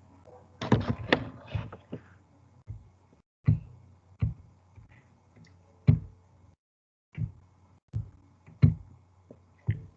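A series of irregular knocks and thumps: a quick cluster about a second in, then single knocks about once a second.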